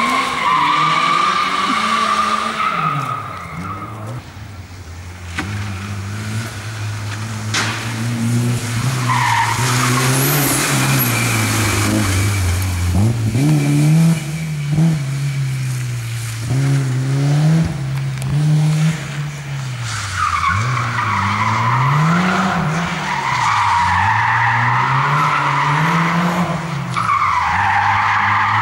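Competition cars driven hard through tight turns on tarmac: engines revving up and falling back again and again with the throttle and gear changes, and tyres squealing near the start and through much of the last third.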